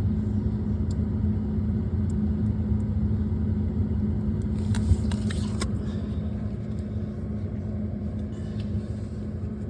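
A steady low hum, with a short run of plastic clicks and rattles about five seconds in as the lever of the ice dispenser is worked into the broken solenoid.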